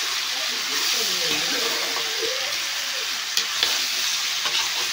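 Sliced potatoes sizzling in hot oil in a kadhai while being stirred and turned with a perforated steel spatula. A steady sizzle runs throughout, with a few sharp clicks of the spatula against the pan.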